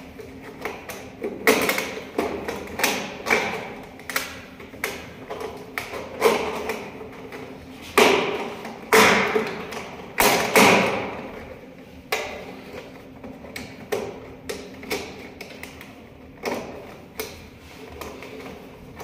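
Irregular taps, knocks and clatters of hands working bundled wiring inside a steel electrical control panel, with a cluster of louder hits in the middle, over a faint steady hum.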